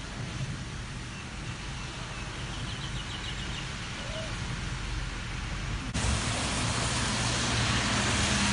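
Steady rushing noise over a flooded road; about six seconds in it jumps louder to traffic driving through the floodwater, a steady engine hum with the wash of tyres through water.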